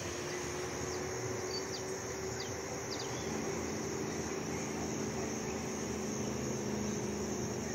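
Steady rush of air over the microphone during a paraglider flight, with a steady high buzz and a few short chirps about two seconds in.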